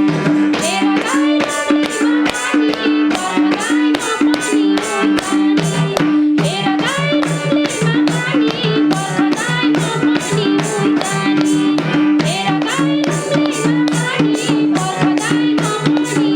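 Instrumental interlude of a Nepali dohori folk song: a hand drum keeps a steady rhythm under a melody line, with no singing.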